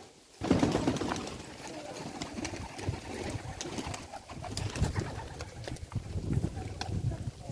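A flock of domestic pigeons cooing while feeding, with many short sharp clicks of pecking at grain, starting about half a second in.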